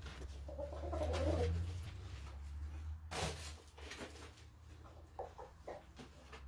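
Shamo gamefowl giving low, cooing-like calls, then a few short clucks, over a steady low hum, with a brief noisy burst about three seconds in.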